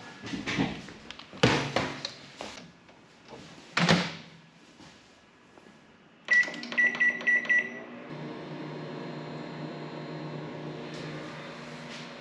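A few knocks and clatters, then a microwave oven's keypad beeps about five times and the oven starts running with a steady hum.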